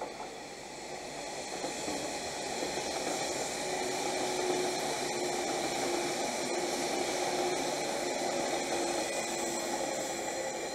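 485-series 'Resort Yamadori' electric multiple unit passing on the near track, its running noise building over the first few seconds, staying loud through the middle and easing off near the end.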